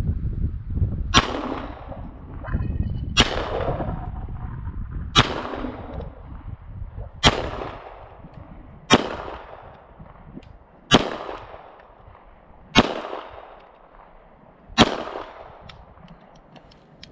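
Tristar C100 9mm pistol, a CZ75 clone, fired eight times in slow aimed shots about two seconds apart, each sharp report trailing off in an echo.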